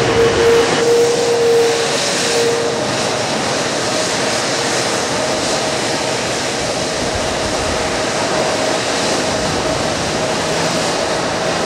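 Airbus A330-300 turbofan engines at taxi power: a steady jet whine over a rushing hiss, the tone of the whine stepping up slightly in pitch about halfway through.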